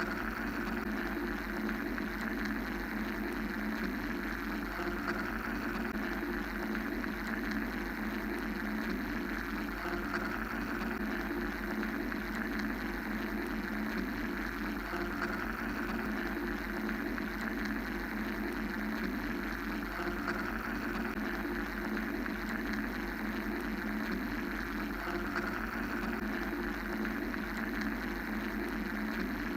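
Steady mechanical droning noise, a continuous hum with a hiss layered over it. The hiss swells and fades gently every few seconds.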